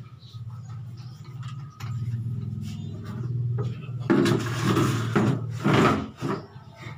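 A plastic monobloc chair being dragged and set down on a hard floor, scraping and knocking for about two seconds starting about four seconds in, over a steady low hum.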